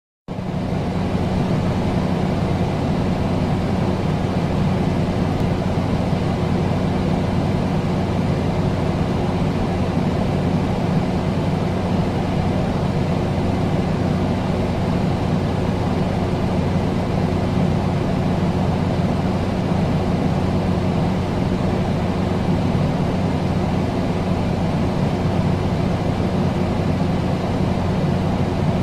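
Air conditioner running steadily: a constant rush of air with a steady low hum beneath it.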